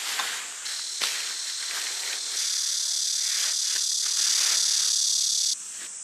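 A high, steady, shrill insect drone that gets louder about two seconds in and cuts off suddenly near the end. Underneath it, the crinkling rustle of nylon tent fabric being folded and stuffed into its sack.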